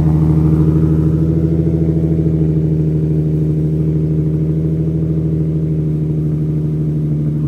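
Nissan 350Z's 3.5-litre V6 idling steadily through a newly fitted Tomei aftermarket exhaust, heard close at the tailpipe.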